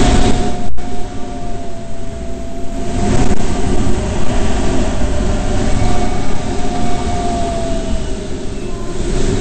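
Airflow rushing over the cockpit of an SZD-59 aerobatic glider in flight, with a thin whistle that slowly rises and falls in pitch. The sound cuts out for an instant just under a second in.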